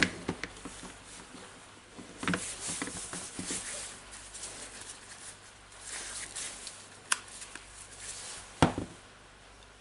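Plastic housing of a Milwaukee M12 cordless drill being closed and turned over in gloved hands: rustling and scraping with a few scattered clicks and knocks, the loudest about a second before the end.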